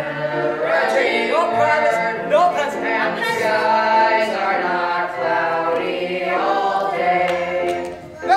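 Young cast singing a show tune together as a group, holding notes that change about every second.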